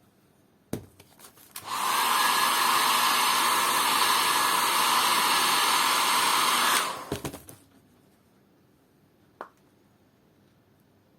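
A handheld electric hot-air blower runs steadily for about five seconds, with clicks as it is handled and switched on and off.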